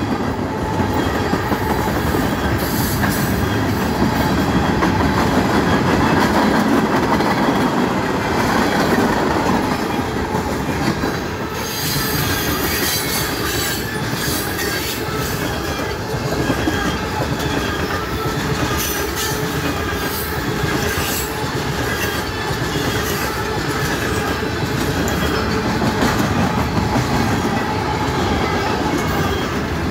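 Freight train cars rolling steadily past at speed: a continuous rumble with wheels clicking over rail joints and a faint high wheel squeal from about halfway through.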